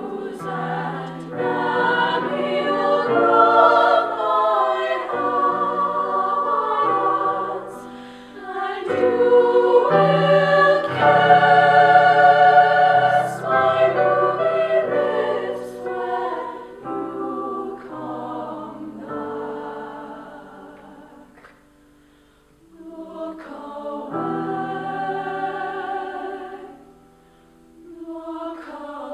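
Women's choir singing in several-part harmony with long held notes. It swells to its loudest about ten to thirteen seconds in, fades almost away near twenty-two seconds, and pauses briefly near the end before the next phrase comes in.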